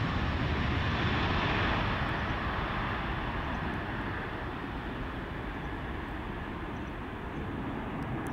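A Boeing 747-400's four jet engines at takeoff thrust during the takeoff roll: a steady, dense rushing noise that grows gradually fainter and duller after about two seconds as the aircraft moves away.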